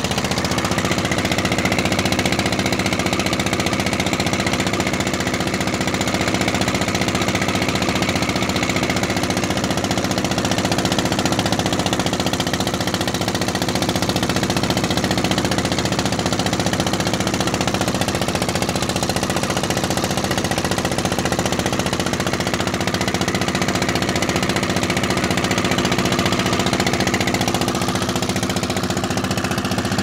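Wooden motorboat's engine running steadily under way, a loud even drone that does not change.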